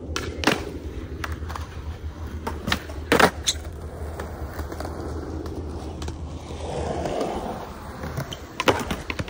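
Skateboard wheels rolling on concrete with sharp board clacks and impacts. The loudest clack comes about three seconds in and a cluster of hits comes near the end; the rolling noise rises in between.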